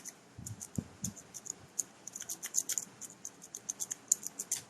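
Lock pick and tension wrench working the pins of a brass padlock: quick, irregular small metallic clicks and scratches, several a second, with a couple of low knocks about half a second to a second in.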